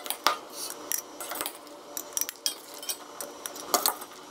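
A metal spoon scraping and clinking in a stainless steel bowl and against glass jars while grated radish and carrot salad is spooned into the jars: a run of scattered light clinks and taps.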